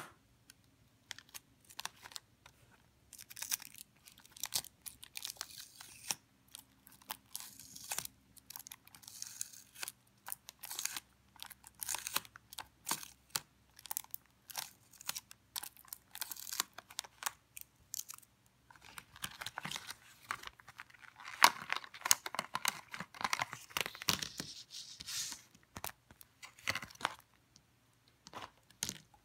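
Stiff clear plastic blister packaging being peeled and pried open by hand: a long run of crackles, clicks and crinkles, thickest about two-thirds of the way through, with a sharp click at the very start.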